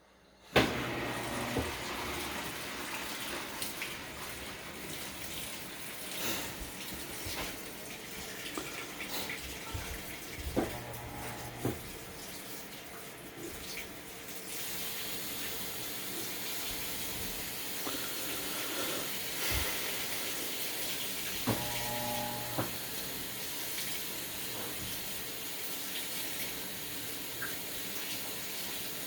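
Broken washing machine with water rushing through it, starting suddenly about half a second in and running steadily. A brief low hum sounds twice, once about ten seconds in and again about twenty-two seconds in, and the hiss brightens about halfway through.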